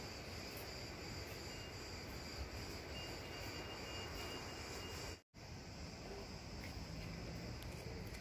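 Insects chirring steadily in a high, even drone. The sound cuts out completely for an instant about five seconds in.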